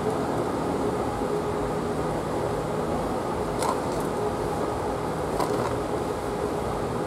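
Steady mechanical hum with a faint even tone, with a few faint short clicks about halfway through.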